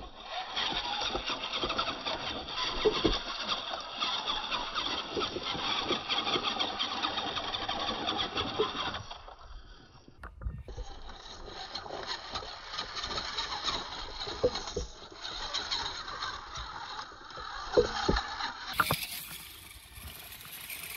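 Small RC rock crawler's electric motor and geartrain whining as it climbs over rock, with occasional knocks of tyres and chassis against the stone. The sound breaks off about halfway through and changes again near the end.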